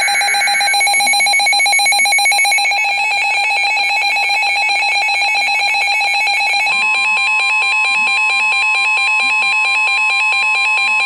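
Emergency Alert System alarm tones: a loud, buzzy, rapidly pulsing alert tone, with the tail of a screechy data burst at the very start. About two-thirds of the way through, a second steady, slightly higher tone joins it, which fits the National Weather Service warning-alarm tone.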